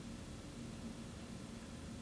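Turn of the Century Energy Select 52-inch ceiling fan running: a faint, steady low motor hum under an even hiss of air and room noise.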